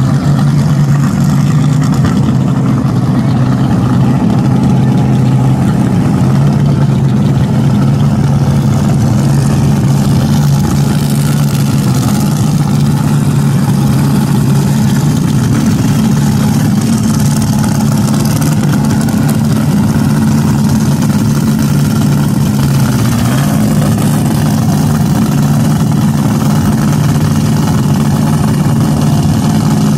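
Top alcohol dragster engines idling, a loud, steady low rumble with no revving.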